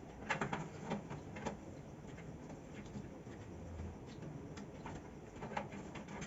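Scattered sharp clicks and light taps from PC parts being handled and fitted during assembly: a cluster of clicks in the first second and a half, then single clicks near the end, over a low background hum.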